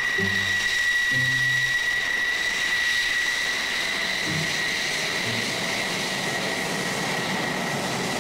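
F-16 fighter jet taxiing, its jet engine giving a steady high-pitched whine over a rushing hiss.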